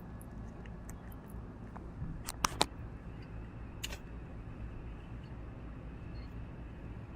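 Small sharp plastic clicks as a micro USB cable plug is handled by hand: two close together about two and a half seconds in and another a little later, over a steady low hum.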